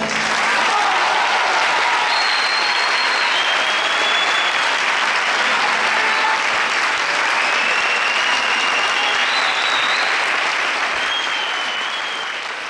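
Audience applause breaking out as a folk dance ends, a dense steady clapping that dies away near the end.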